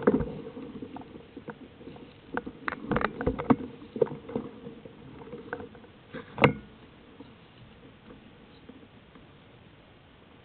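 Mountain bike rattling and knocking over a rough trail, heard from a camera on the bike: irregular sharp knocks, the loudest about six seconds in, then thinning out to a faint hiss.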